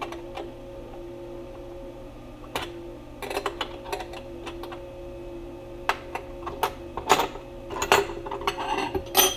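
Scattered sharp metallic clicks and clinks as hand-held metal parts and aluminum square tubing are loosened and lifted from a CNC router's aluminum T-slot bed, coming more often in the second half. A steady machine hum runs underneath.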